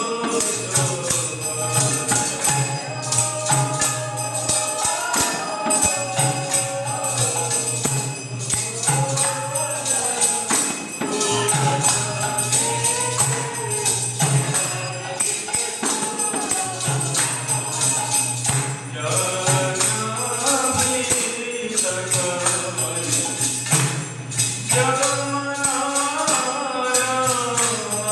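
Devotees singing a kirtan together during temple aarti, with hand cymbals (kartals) keeping a steady beat.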